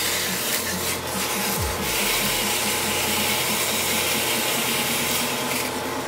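A drill press spins a turned wooden chair spindle while sandpaper is held against it. There is a steady hiss of sanding from about two seconds in until shortly before the end, as the old clear finish is sanded off the turned grooves.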